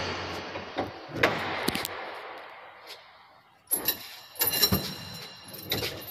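Heavy wooden church main doors being unbarred and worked open: a knock echoing through the empty church, then a run of clanks and rattles from the door's bolts and latches about four seconds in.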